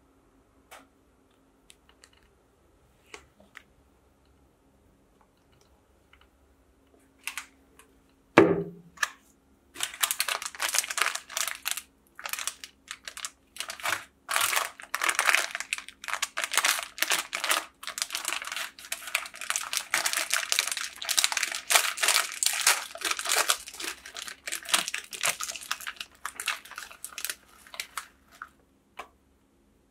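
Plastic ice-cream bar wrappers crinkling and rustling as they are handled, with one wrapper torn open and the bar pulled out. A single thump about eight seconds in, before the crinkling starts.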